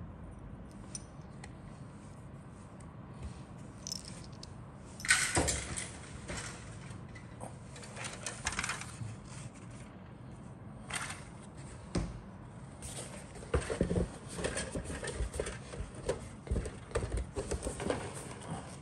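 Plastic model kit parts, sprues and the kit box being handled: irregular light clicks, rattles and rustling, with a louder clatter about five seconds in and a busier run of clicks and rustles in the last few seconds.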